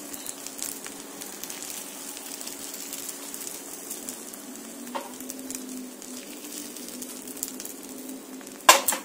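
Beaten egg with sliced petai beans and chili frying in hot oil in a small pan, giving a steady crackling sizzle. The pan knocks once against the stove grate near the end.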